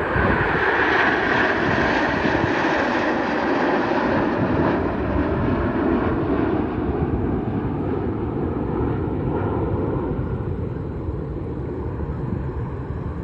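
Formation of nine BAE Hawk T1 jet trainers flying past: a loud jet roar that falls slightly in pitch and slowly fades over the second half.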